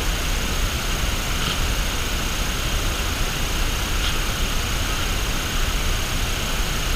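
Steady, even outdoor background hiss with a low rumble underneath, and two faint clicks, one about a second and a half in and one about four seconds in.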